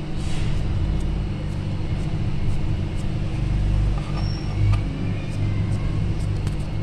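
A steady low hum with a few faint soft clicks over it.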